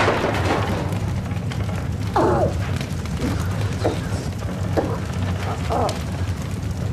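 Aftermath of a barn explosion: a low steady rumble with faint scattered crackles, typical of fire burning. A few short groans from a trapped person come through a couple of seconds in and again several times after.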